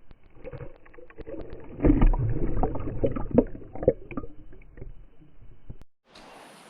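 Muffled, irregular knocks and thumps with sloshing water, loudest about two seconds in; they stop suddenly near the end.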